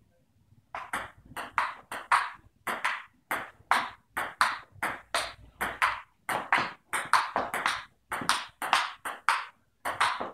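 Table tennis rally: the ball clicking off paddles and the tabletop in quick alternation, about two to three sharp hits a second, starting about a second in and keeping up without a break.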